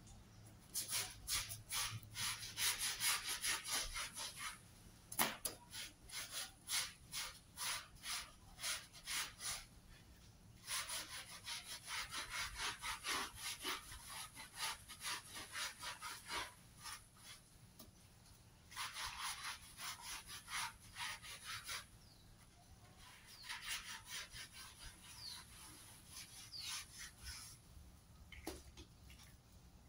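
Hand scrub brush worked back and forth over a wet rug mat: quick rasping strokes, two or three a second, in four runs with short pauses between.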